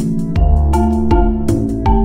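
Background music with a steady beat: sustained chords over deep bass notes.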